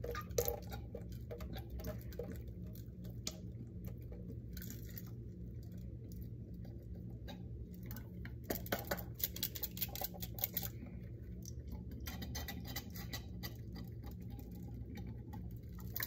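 Small plastic water-filled toy being shaken and handled over a steel sink, with scattered patter and light clicks as the last drops of water are worked out of it. A steady low hum runs underneath.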